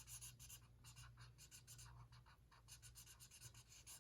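Quick back-and-forth strokes of a drawing tool scratching on paper, faint, as the bee's stripes are coloured in black.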